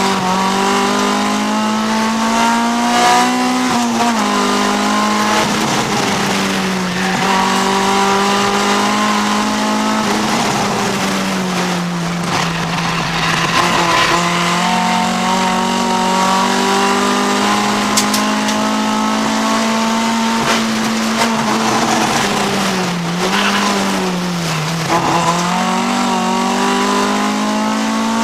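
Honda CRX's B20 VTEC four-cylinder race engine running at high revs, heard from inside the cabin, its pitch climbing slowly and dipping briefly about 4, 12 and 24 seconds in.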